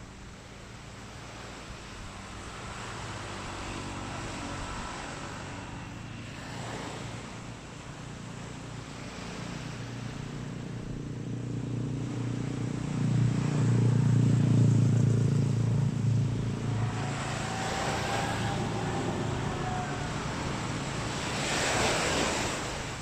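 A motor engine drones past, growing louder to a peak a little past the middle and then easing off, over waves washing on the beach.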